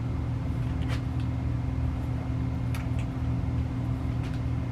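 A steady low machine hum, with a few faint clicks as the rifle is handled and lifted.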